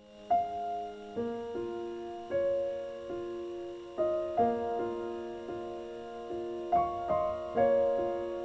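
Gentle piano music: single notes and chords struck about once or twice a second and left to ring out.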